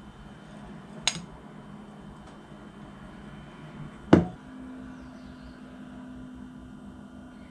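Spoon and ceramic plate handled on a stone countertop: a light clink about a second in, then a much louder single knock a little after four seconds. A faint steady hum sets in just after the knock.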